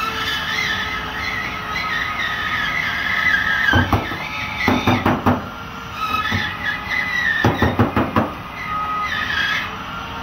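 Cordless drywall router (rotary cutout tool) cutting through gypsum board, its high whine wavering as the bit takes the load, twice in long runs. Between the runs come two clusters of sharp knocks and snaps as drywall pieces are broken out.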